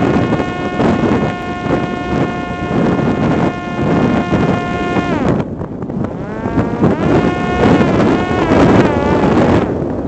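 Parrot Disco fixed-wing drone's electric motor and propeller whining over heavy wind rushing across the onboard microphone in strong wind. The whine holds a steady pitch for about five seconds, then drops and rises again, wavering in pitch until the end.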